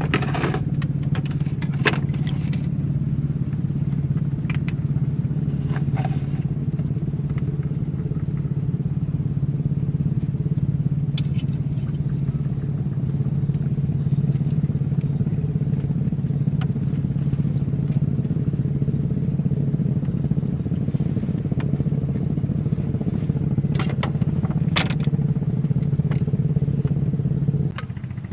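Small engine running steadily at a constant speed, with a few brief clicks and knocks over it. The level drops suddenly near the end.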